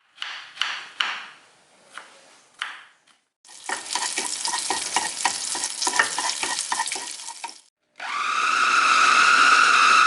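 Kitchen cooking sounds in three short cut pieces. First a few sharp knocks, then about four seconds of quick repeated strikes and scraping, then a steady high whine over a hiss, starting about eight seconds in.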